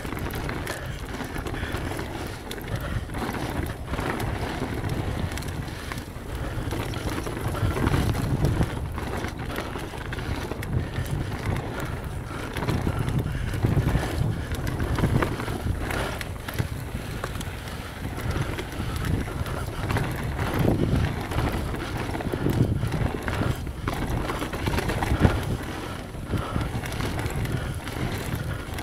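Mountain bike coasting fast down a dirt trail: tyre noise on loose dirt and leaves, with many small rattles and knocks over bumps, and wind rumbling on the microphone.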